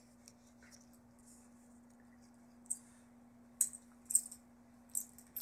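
Metal collar tags on German Shepherds jingling in short clinks, about five times in the second half, as the dogs roll and wrestle. A faint steady hum lies underneath.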